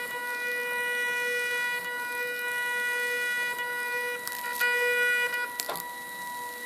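Zebra ZM400 thermal label printer printing its sensor-profile graph: the stepper motor feeds the labels with a steady whine of several pitches. The whine breaks off briefly twice, about four and five and a half seconds in, then goes on in a thinner tone.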